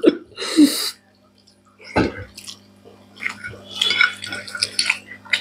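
Close mealtime sounds of eating by hand at a table: a short wet sip from a glass of water just after the start, a sharp knock about two seconds in, then a run of small wet clicks and crackles from fingers mixing rice and curry and from chewing.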